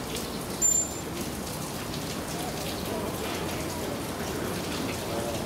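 One short, high trainer's whistle blast about half a second in, as the sun bear touches the target stick: the signal that she has earned her honey reward. Under it a steady hiss and faint background voices.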